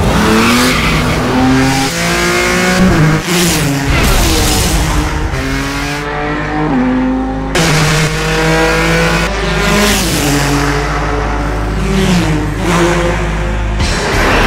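Ford GT race car's twin-turbo EcoBoost V6 accelerating hard, its note climbing through each gear and dropping back at each upshift, several shifts in a row.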